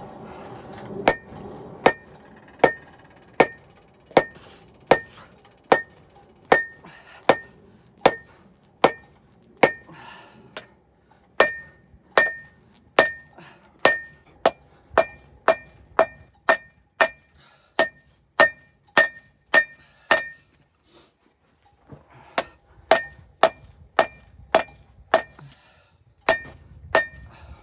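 Hand hammer forging a glowing 80-layer 1084 and 15N20 damascus billet on an anvil: a steady run of ringing blows, a little over one a second and quickening, with a pause of about two seconds near two thirds of the way through before the blows resume.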